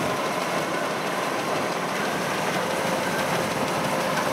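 Kubota DC-93 combine harvester running at work, cutting and threshing rice: a steady, dense mechanical din from the engine and threshing drum, with a faint steady whine.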